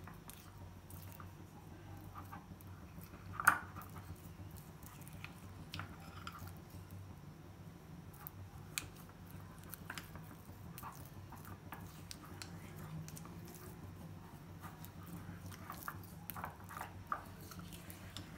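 Metal spoon stirring thick custard-powder paste in a small glass bowl: soft wet squelching with scattered clinks of the spoon against the glass, one sharper clink about three and a half seconds in, over a steady low hum.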